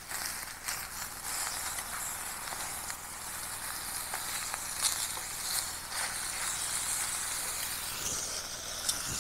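Steak sizzling over a campfire: a steady hiss with scattered pops and crackles.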